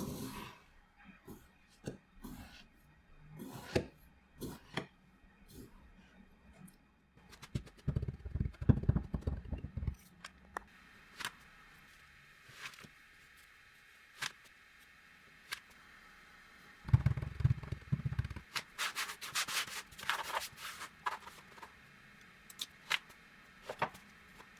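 Kinetic sand being worked by hand: soft crumbling, rubbing and scraping with scattered small crackles, and louder, denser crumbling about eight seconds in and again around seventeen to twenty-one seconds in.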